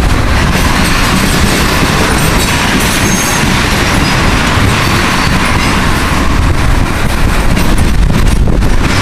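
Tank cars of a freight train rolling past at close range, a loud, steady rumble with wheels clattering over the rail crossing diamond.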